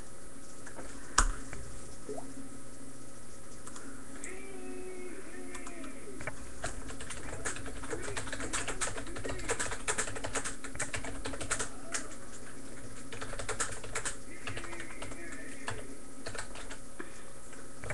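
Typing on a computer keyboard: runs of quick key clicks, busiest in the middle, with a single sharper knock about a second in.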